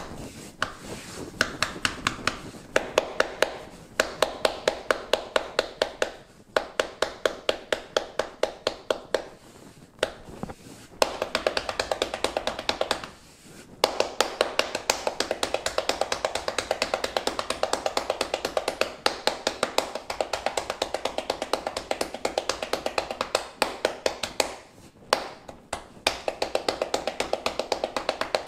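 Palms patting sorghum (jowar) roti dough flat on a flour-dusted countertop. The pats come in quick runs of several a second, with short pauses between runs.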